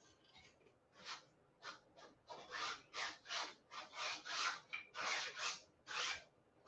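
Small palette knife scraping and spreading paint across a canvas on an easel, about a dozen short rasping strokes at roughly two a second, starting about a second in.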